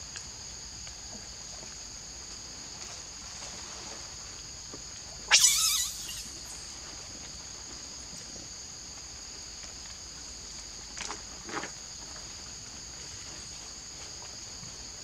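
A macaque gives one short, harsh scream about five seconds in, over a steady high drone of forest insects; two fainter short sounds follow near eleven seconds.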